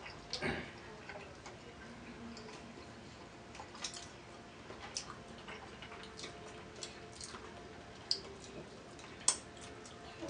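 Close-up eating sounds: chewing and lip smacks, with scattered sharp wet mouth clicks at irregular intervals, the two loudest about eight and nine seconds in.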